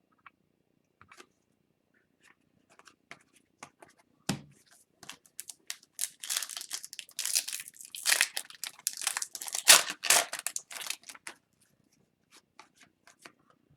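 Trading cards handled with light clicks and a thump about four seconds in, then a foil hockey card pack wrapper crinkling and tearing for several seconds.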